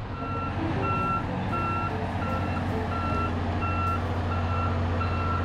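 Vehicle reversing alarm beeping steadily, about eight beeps evenly spaced, over the low steady hum of a running engine.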